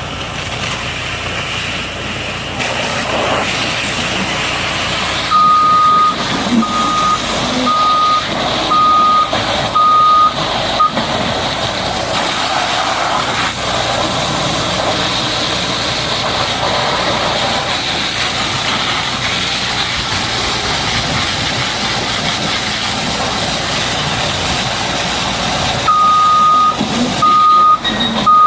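Reversing alarm of a heavy machine, a single-pitch beep repeating about once a second, in two runs: one starting about five seconds in and lasting about six seconds, another starting near the end. Under it, a steady loud noise of machinery or spray.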